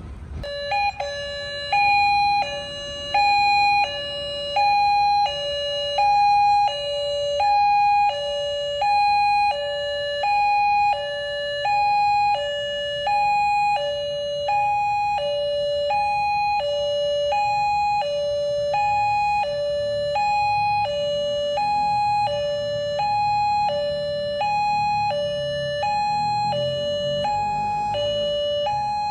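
Railway level-crossing warning alarm sounding its electronic two-tone 'ding-dong', a high and a lower tone alternating about once a second: the signal that a train is approaching and the barriers are closing. A low rumble underneath grows louder near the end.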